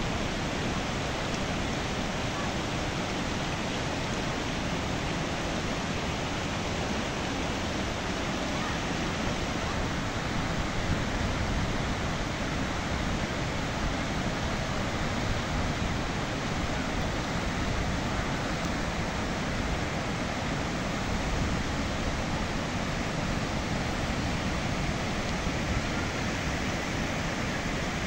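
Mountain stream rushing over rocks and small cascades, a steady, unbroken rush of water.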